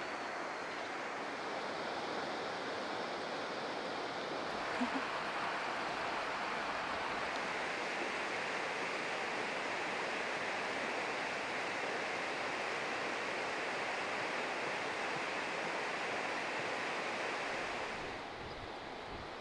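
Steady rushing outdoor ambience, an even hiss with nothing distinct in it. It turns brighter about four and a half seconds in and quieter near the end.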